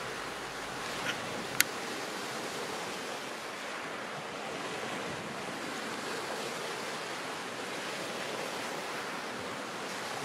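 Shallow water washing over pebbles: a steady wash of water noise, with two short clicks about a second in, the second one sharp and loud.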